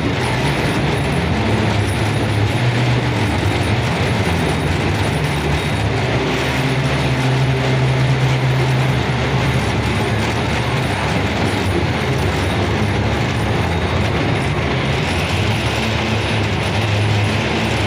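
Train running on the line: a steady rumble with a continuous mechanical rattle.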